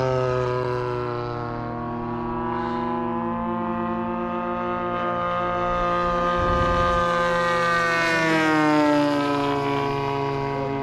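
Engines of several radio-controlled model warplanes, including 35cc gas-powered Spitfires, droning together overhead in flight. Their tones overlap and slowly shift in pitch, and one plane's pitch drops as it passes, about eight seconds in.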